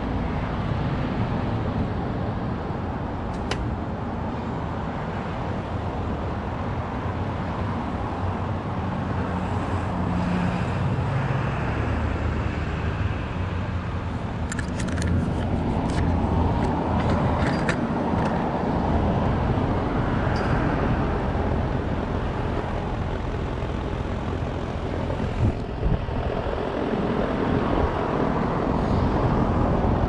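Outdoor heat pump units running: a 1994 Lennox Elite Series HP-25 starting up in heat mode, its compressor humming and its condenser fan rushing, alongside a neighbouring Lennox heat pump running in defrost. The sound is steady and grows a little louder about halfway through, with a few sharp clicks a few seconds in and a cluster of them around the middle.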